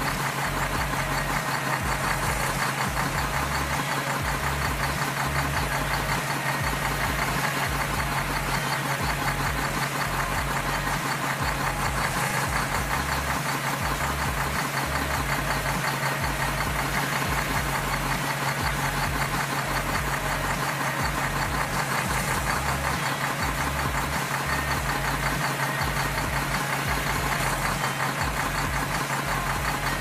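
A steady, unchanging engine idle with a fast, even low rumble.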